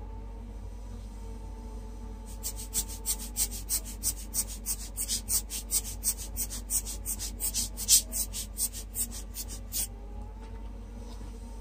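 Alcohol ink marker scratching across glossy photo paper in quick back-and-forth strokes, about four a second. The strokes start about two seconds in and stop a couple of seconds before the end.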